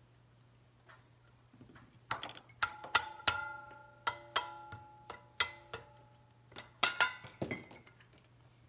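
Mallet knocking on the fan guard at the back end of an electric motor to work it loose: about fifteen sharp knocks over some five seconds, many in quick pairs, the struck metal ringing after them.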